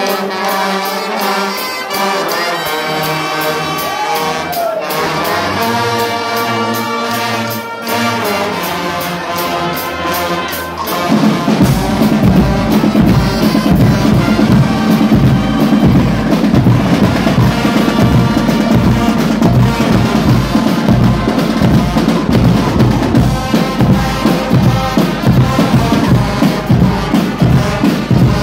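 A Guggenmusik band playing live: trumpets and trombones playing a loud brassy tune, joined about eleven seconds in by bass drums and percussion playing a steady beat.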